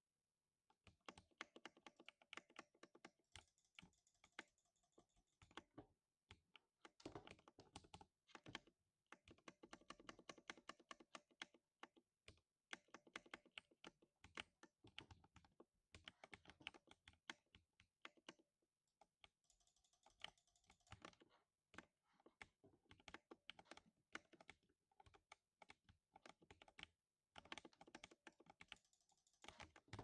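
Typing on a 60% mechanical keyboard with lubed silver linear switches: fast, continuous runs of keystrokes, broken by several short pauses.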